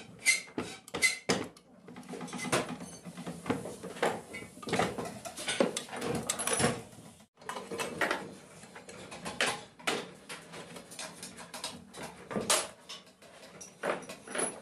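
Metal clinking, clicking and clattering as a wrench works a bolt and parts of a cast-iron sewing machine head are handled. It opens with a quick run of sharp clicks, then turns into busier clatter and scraping with scattered knocks.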